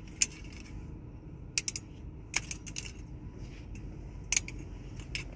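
Several sharp, close clicks and taps, some in quick pairs and a triple, over a low steady rumble inside a car.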